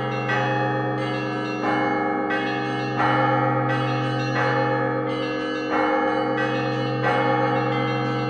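Bronze church bells of a Russian Orthodox belfry being rung. A steady low ringing holds throughout, under fresh bell strikes that land about every two-thirds of a second, each adding a bright ringing that dies away before the next.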